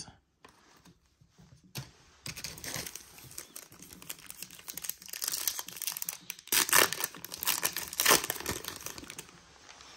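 Foil wrapper of a baseball card pack crinkling in the hands as it is torn open, starting about two seconds in, with two louder rips about two-thirds of the way through.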